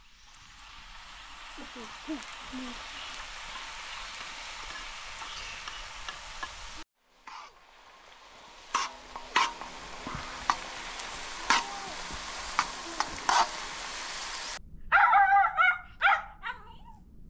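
Food sizzling as it fries in a pan. After a short break the sizzle returns, with a utensil tapping and scraping against the pan about half a dozen times. Near the end a dog whines and yips.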